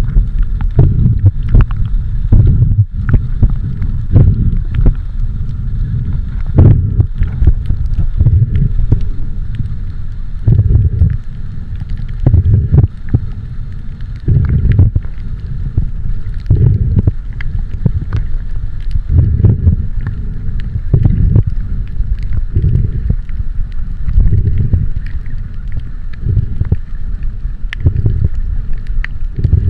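Loud, irregular low rumbling and buffeting on the microphone, pulsing every second or so, over a faint steady hum.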